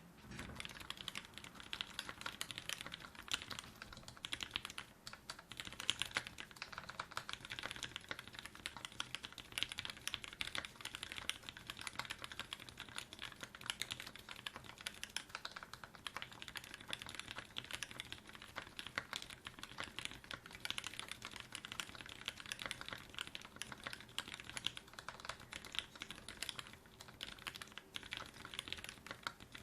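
Continuous fast typing on an LZ MP mechanical keyboard fitted with Fei switches (Cherry top housings, 60 g TX springs) and GMK Oblivion keycaps: a steady stream of closely spaced keystroke clacks.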